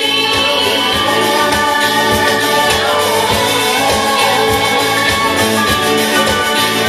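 Karaoke backing track with a steady beat, and women singing along into microphones over it.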